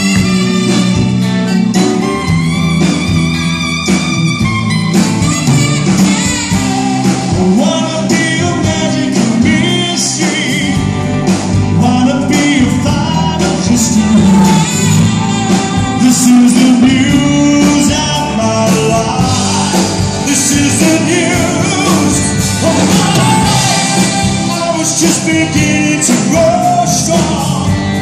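Live band playing a pop-rock song: a male lead singer over electric guitars, keyboards and drums.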